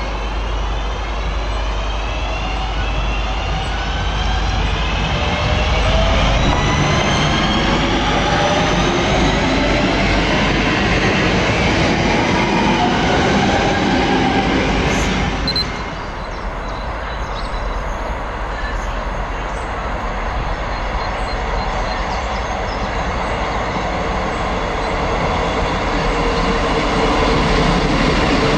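Class 323 electric multiple unit's traction motors whining in several tones that rise in pitch as it accelerates, over rail noise. About halfway through the sound changes abruptly to a Class 158 diesel multiple unit approaching, its engine and wheels growing louder toward the end.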